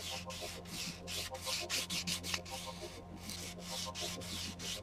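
Wet-or-dry sandpaper rubbed back and forth over the painted metal of a kid's bicycle frame, wet-sanding the paint in a quick run of scratchy strokes.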